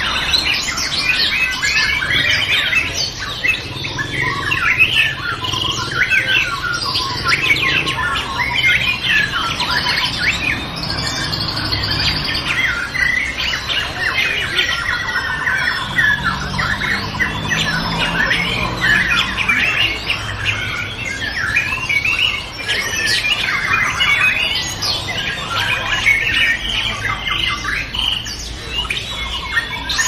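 Several white-rumped shamas singing at once: dense, overlapping whistles, trills and chatter.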